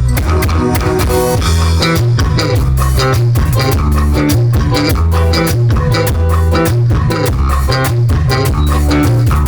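Live band music: guitar over bass guitar and drum kit, with a steady beat.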